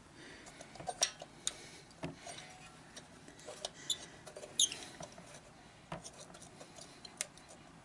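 Irregular light metal clicks and scrapes as the thin metal dust shield is worked off the crankshaft nose by hand.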